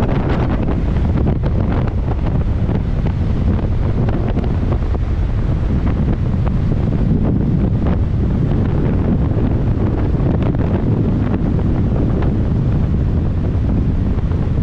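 Strong, steady wind buffeting the microphone, a dense low rumble that never lets up.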